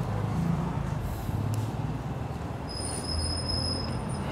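Mahindra Jivo 245 DI tractor's diesel engine idling with a steady low hum. A thin high-pitched whistle comes in about three seconds in.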